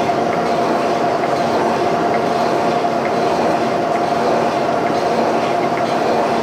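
Boring bar turning under power and taking a cut in a steel bore: a steady mechanical grind with a constant tone running through it.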